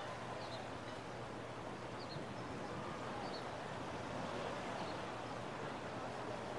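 Steady beach ambience: a constant wash of surf noise, with a few short, high bird chirps over it.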